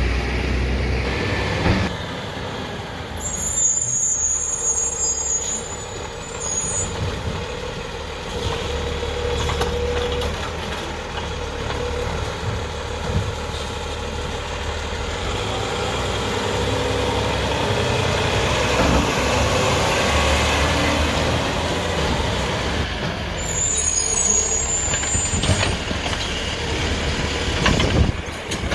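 Automated side loader garbage truck (Heil DP Python body on a 2022 Autocar chassis) running steadily, with its engine rumbling throughout. Two brief high-pitched sounds cut in, one a few seconds in and another near the end.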